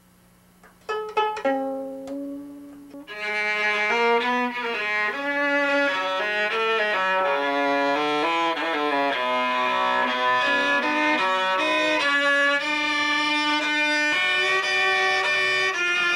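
A viola: a few single notes plucked about a second in, then from about three seconds a continuous bowed melody.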